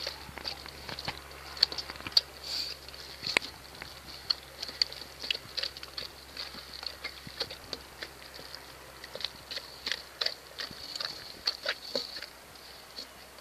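Saint Bernard eating raw BARF food from a stainless steel bowl: irregular wet smacking, lapping and chewing clicks, many per second in spells.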